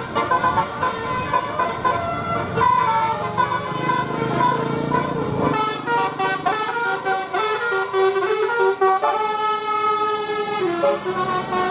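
Telolet bus horns, the multi-tone musical air horns of Indonesian buses, playing quick tunes that step rapidly from note to note, with a long held chord about nine seconds in.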